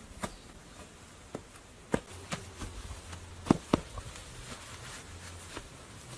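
Irregular knocks and taps, about eight in all, the loudest a pair close together about three and a half seconds in.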